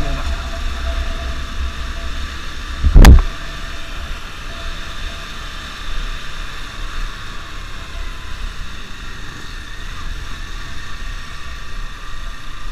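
Motorcycle riding along a street: a steady low rumble of engine and road noise. About three seconds in there is one short, loud knock.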